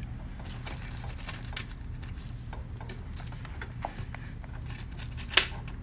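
Faint clicks and rubbing from hands pulling at the jammed battery compartment cover of an electric motorcycle, with one sharp click about five seconds in, over a low steady hum.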